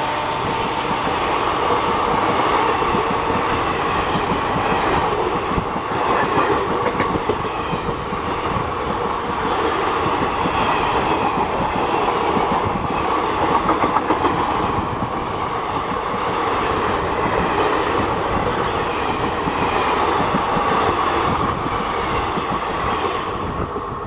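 Passenger coaches of an Indian Railways express train rushing past close by at speed: a loud, steady roar of steel wheels on rail with rapid clickety-clack over the rail joints, easing slightly near the end as the last coaches clear.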